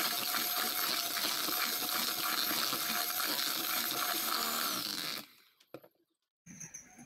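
Electric hand mixer running, its beaters creaming sugar and margarine in a plastic bowl with a steady whine; it stops about five seconds in, followed by a couple of faint knocks.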